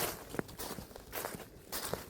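Footsteps of a person walking outdoors at a steady pace, about two steps a second, with a sharp click a little after the first step.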